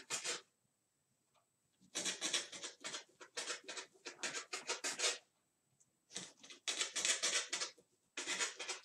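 Corn tortillas being cut into small strips: bursts of quick, scratchy cutting strokes. The first burst starts about two seconds in, after a short silence, and two more follow after brief pauses.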